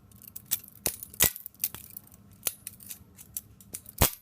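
Balisong butterfly comb being flipped open and shut: a quick, irregular run of sharp clicks and clacks as the handles swing and knock together, with two louder clacks about a second in and near the end.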